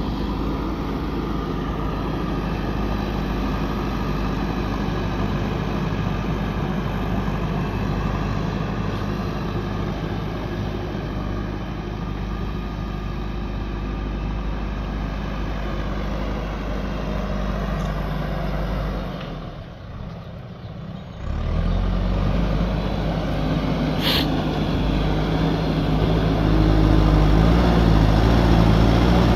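Diesel engines of a JCB backhoe loader and a farm tractor running steadily as soil is loaded. About two-thirds through the sound drops away briefly, then returns louder and deeper as the backhoe's front loader works a soil pile, with a short sharp click a few seconds later.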